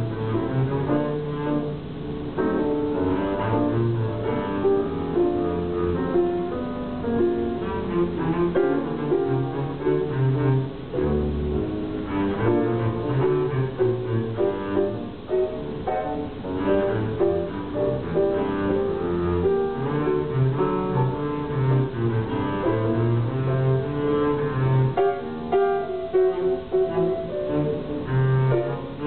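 Live duo of double bass played with the bow and grand piano, the bass holding long low notes under the piano.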